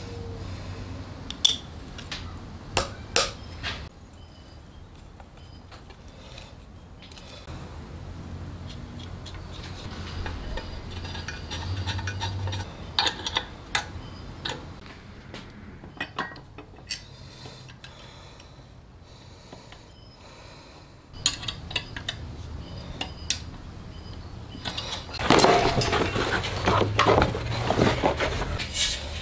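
Small metal parts being handled and fitted, giving scattered light clicks, clinks and taps. Near the end a louder stiff rustling and scraping as a large sheet of leather is unrolled on a workbench.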